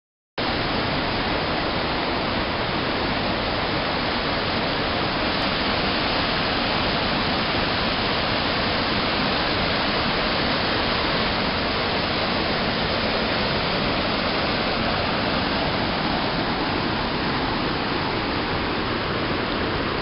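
Steady rush of a mountain waterfall and its stream cascading over rocks, a constant wash of water noise that begins about half a second in.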